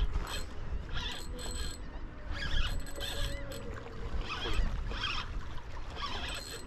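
Fishing reel being cranked in short, irregular spurts as a hooked black drum is brought in, over a steady low rumble of wind on the microphone.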